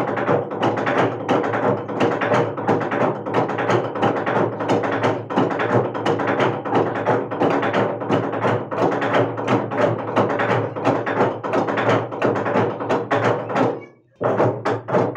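A large hollowed-out tree-trunk log drum beaten by many men with wooden beaters, a fast, dense rhythm of overlapping wooden knocks. The beating breaks off briefly near the end and then starts again.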